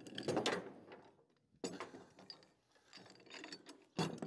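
Metal rigging of a trailer-mounted log winch being handled by hand: four short bursts of ratcheting clicks and rattles spread across a few seconds.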